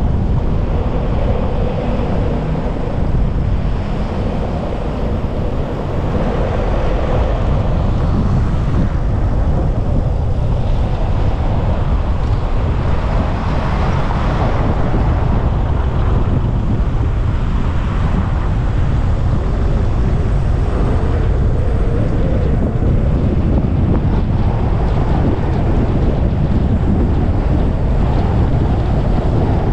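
Steady rumble of wind and road noise from a moving car, with wind buffeting the microphone.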